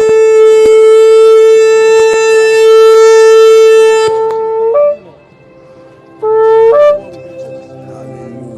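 Shofar blown: one long steady blast that breaks upward in pitch as it ends, near five seconds in, then a short second blast about a second and a half later that also ends with an upward break.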